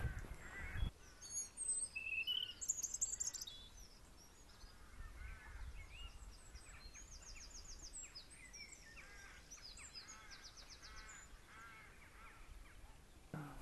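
Several small birds singing and calling, with repeated short chirps and fast, high trills, over a faint low rumble of wind. A louder gust of wind on the microphone cuts off about a second in.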